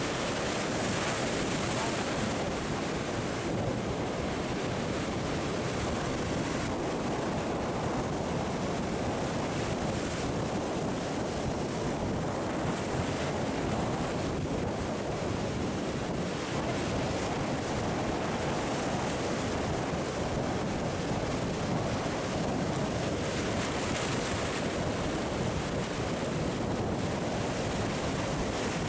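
Sea surf breaking and washing over shoreline rocks: a continuous rush of water.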